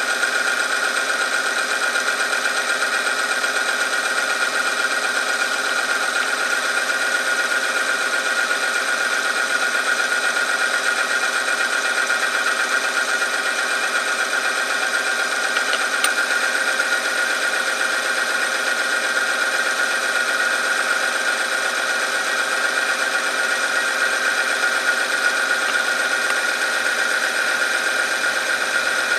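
Benchtop oil film friction tester running: its electric motor spins a ring through motor oil heated to 100°C while a loaded test sample rubs against it. It gives a steady whine with a strong high tone that does not change.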